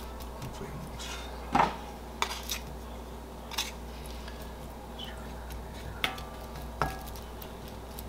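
Wooden spatula and a second utensil knocking and scraping against a cast iron skillet while spreading a sticky strawberry filling: a handful of scattered knocks, the loudest about a second and a half in.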